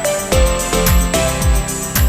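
Background electronic music with a steady beat, a deep kick drum about twice a second under held synth notes.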